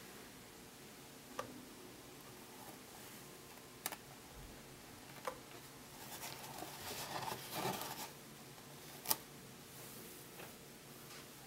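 Faint handling sounds of a leopard gecko on paper towel in a plastic tub: a few sharp, isolated clicks and, about six seconds in, two seconds of rustling and scraping as the lizard is picked up.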